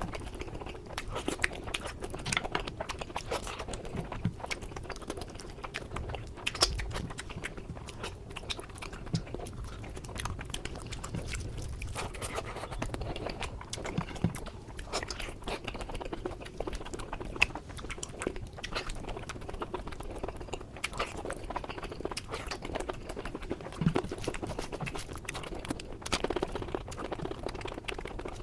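Close-miked eating: steady chewing with irregular crunches and bites throughout.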